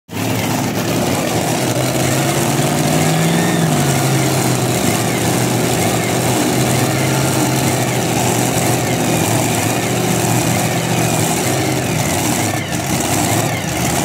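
Supercharged, methanol-fuelled Hemi V8 engines of a pulling tractor idling loudly and steadily, the revs rising briefly about three seconds in and settling back.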